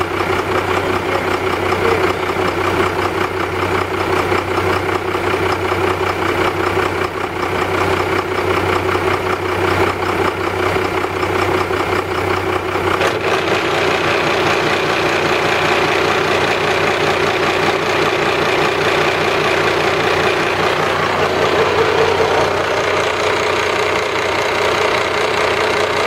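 Boat's inboard engine running steadily, heard up close in the engine room; its tone changes about 13 seconds in and then holds steady.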